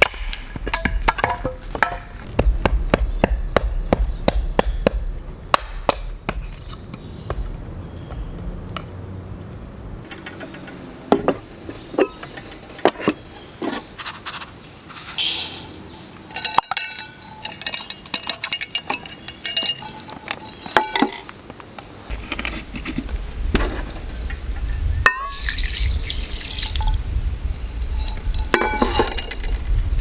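Hatchet chopping and splitting firewood on a wooden stump, many quick knocks, then a small metal cup clinking against a clay donabe as rice is measured in, and near the end water poured over the rice.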